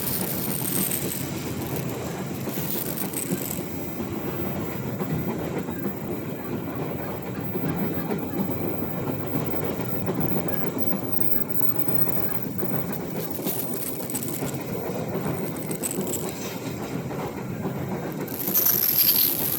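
A train passing, its wagons rumbling and clattering steadily over the rails. Brief high-pitched screeches come in the first few seconds, and a louder one comes near the end.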